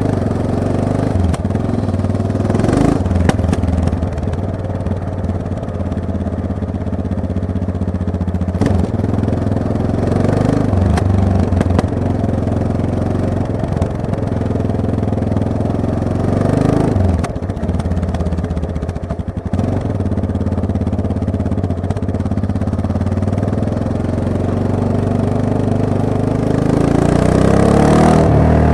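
Yamaha MT-03 motorcycle engine running under way, the revs repeatedly rising and falling as it accelerates and shifts. A few sharp knocks are heard along the way.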